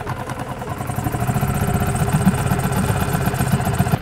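Yamaha 5 hp petrol outboard running on choke just after a pull start, with a rapid, even ticking beat that grows a little louder after the first second.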